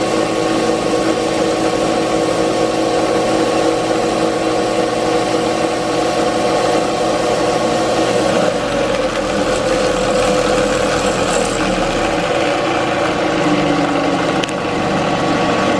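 Benchtop drill press motor running steadily with a whine. Its pitch sags briefly twice, about halfway through and near the end, as if under load from the bit.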